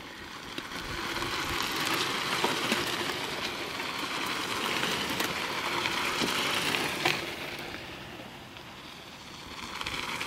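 Mountain bikes rolling past close by on a dirt and gravel track, their tyres crunching over loose gravel with scattered ticks and rattles. The noise swells as riders pass, dips about eight seconds in, and rises again near the end as another rider comes by.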